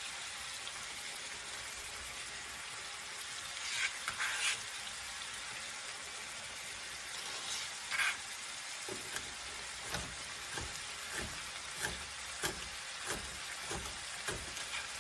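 Ground beef and onion sizzling in a frying pan, a steady hiss. From about nine seconds in, a knife chops onion on a cutting board in regular strokes, about two a second.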